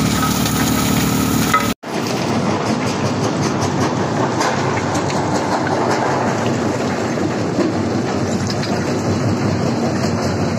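Steady machine hum from a vibrating pan feeder. About two seconds in, a sudden cut gives way to a dense, continuous clatter of rock rattling in the feeder's steel pan.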